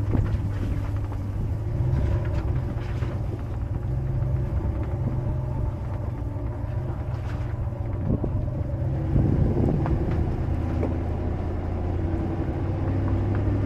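Motor vehicle engine running steadily as it drives, a low even drone, with a few knocks and rattles about eight to ten seconds in.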